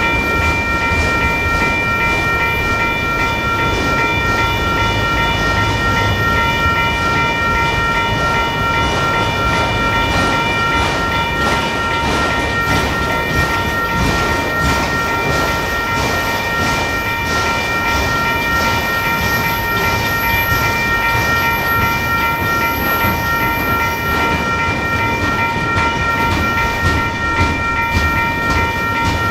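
Western-Cullen-Hayes mechanical grade-crossing bell ringing steadily, with several high ringing tones, over a long freight train of autorack and stack cars rolling slowly uphill through the crossing. The wheels tick over the rail joints above a low rumble.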